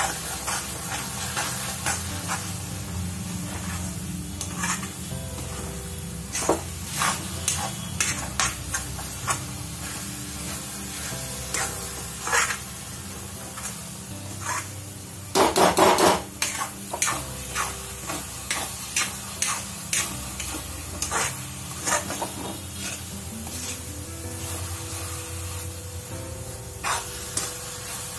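A spatula scraping and knocking around a metal kadhai, stirring grated coconut cooking in sugar syrup, which sizzles over high heat. The strokes come in an uneven rhythm, with one louder scrape a little past halfway.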